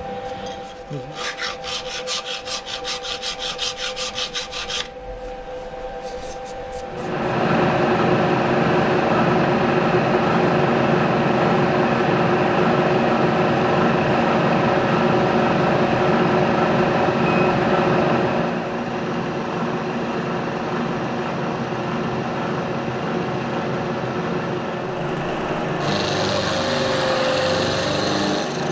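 A hand file rasping on steel in a milling-machine vise in quick, even strokes for the first few seconds. About seven seconds in, the milling machine takes over, an end mill cutting the corners off a piece of steel angle iron. This steady machining sound is the loudest part, and it drops somewhat after a while.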